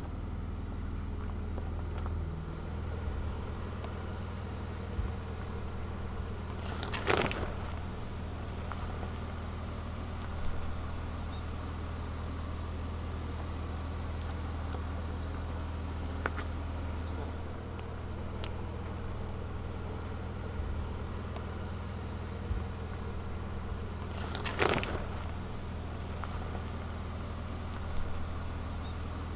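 Ford Ranger Raptor pickup crawling slowly down a rocky dirt trail, its engine running steadily. Scattered sharp cracks and knocks come from rocks under the tyres, two of them loud: one about seven seconds in and another about five seconds before the end.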